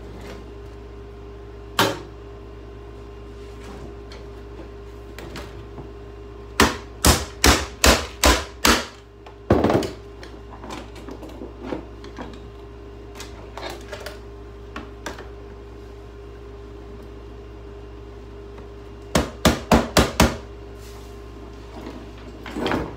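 Hammer blows on refrigerator parts being broken apart. A single blow comes first, then a run of six at about three a second, another blow, some lighter taps, and a quick run of five near the end, over a steady hum.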